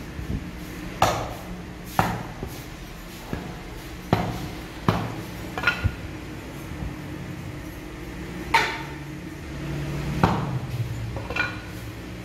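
Heavy meat cleaver chopping meat on a wooden stump block: about eight sharp, irregularly spaced chops, a few with a brief metallic ring.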